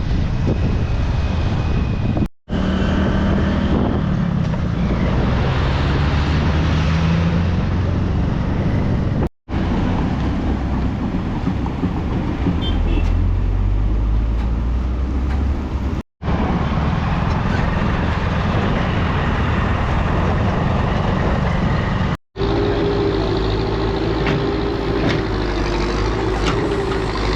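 Road traffic noise: cars and trucks running past, with steady engine and tyre noise, broken by four brief gaps where the footage cuts, and a wavering engine whine in the last few seconds.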